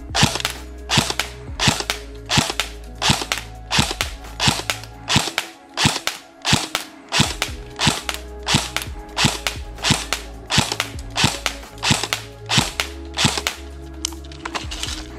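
Jing Gong M4 CQBR airsoft electric gun (AEG), powered by a 7.4 V LiPo, firing semi-automatic: a steady string of about twenty single sharp shots, roughly one every two-thirds of a second. The shots stop about two seconds before the end.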